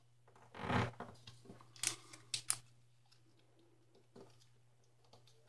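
Origami paper being folded and creased by hand: a short rustle just under a second in, then a few sharp crackles of the paper around two seconds in and a faint one near four seconds.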